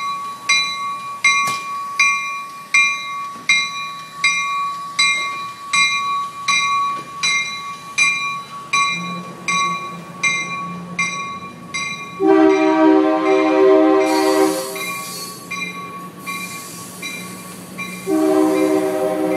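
Amtrak California passenger train's bell ringing steadily about twice a second, then the train horn sounding two blasts, a long one about twelve seconds in and another near the end, with a low engine rumble underneath as the train pulls out.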